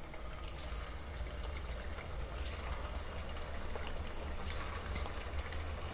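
Potato-stuffed dough pinwheels frying in shallow hot oil in a nonstick pan on low heat: a soft, steady sizzle, a little louder from about two seconds in as more pieces go into the oil.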